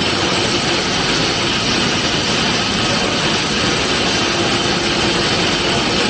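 Glass grinding and polishing machinery running steadily: an even, loud mechanical roar with a thin, steady high whine.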